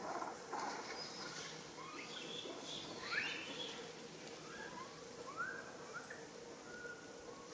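Japanese macaques (Macaca fuscata) giving short, rising coo contact calls, a dozen or so scattered over several seconds, the loudest sweeping up about three seconds in.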